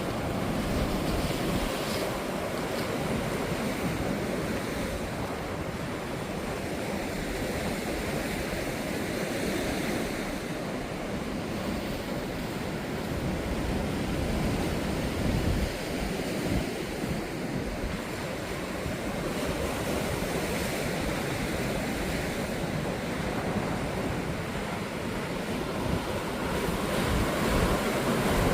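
High sea surf breaking and washing up on the beach in a continuous wash that swells and ebbs, with wind buffeting the microphone; the surf rises louder near the end.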